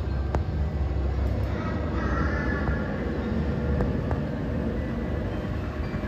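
Miniature model trains running on a layout: a steady rumble of wheels on track with a few sharp clicks, and a higher running whine that comes in about two seconds in.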